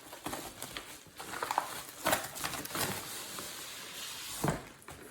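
Packaging being handled as a boxed robot car kit is pulled out of a padded mailer: rustling and scraping with scattered small knocks, and a firmer knock about four and a half seconds in.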